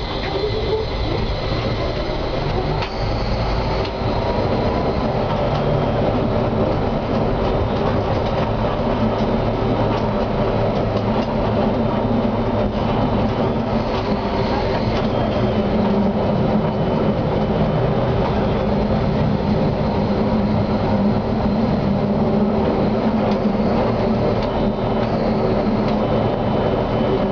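Konstal 105Na tram running along street track, heard from inside the driver's cab: steady motor and wheel noise with a whine that rises over the first few seconds, and occasional clicks from the rails.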